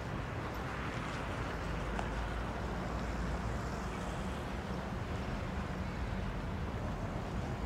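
Steady outdoor street ambience: a continuous low rumble of road traffic under an even hiss, with no distinct events.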